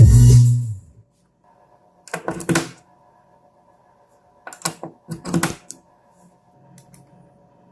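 Background music cutting off, followed by a few short clattering knocks and clicks: two or three quick groups with a faint one near the end.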